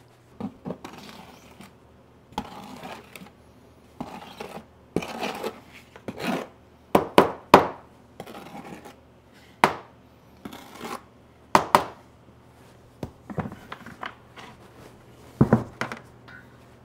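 Trowel scooping modified thin-set mortar out of a plastic bucket and spreading it on cement board: irregular scrapes with scattered sharp knocks, the loudest a few quick ones about seven seconds in.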